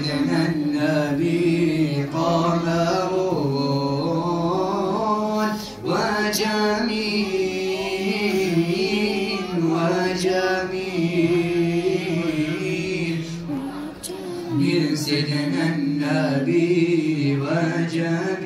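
Men's voices chanting zikr in a sustained, melodic chant, relayed into the women's hall over the mosque's sound system.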